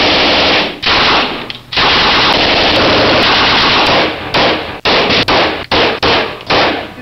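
Submachine gun firing on full automatic: two short bursts, then one long burst of more than two seconds, then several shorter bursts and single shots close together near the end.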